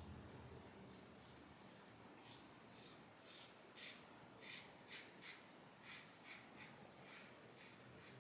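Rockwell 6S safety razor scraping through lathered stubble on the skin in short, repeated strokes, about two a second.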